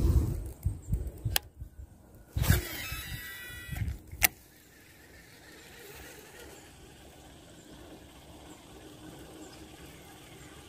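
A cast with a baitcasting reel: the spool whirs for about a second as line pays out, then a sharp click follows a little under a second later. Wind buffets the microphone at the start, and after the click only faint steady background remains.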